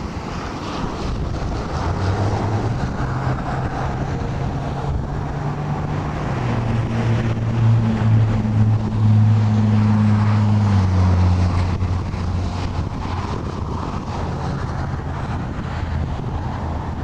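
Wind buffeting the microphone while a vehicle engine hums, its pitch shifting up and down in steps and loudest around the middle.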